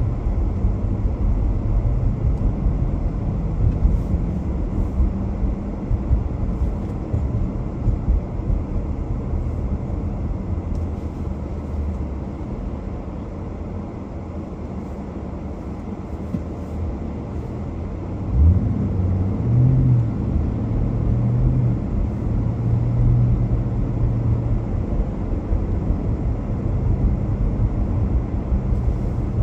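A car driving on city streets: a steady low rumble of engine and road noise. About 18 seconds in there is a sudden thump, and then the engine hum grows stronger for several seconds.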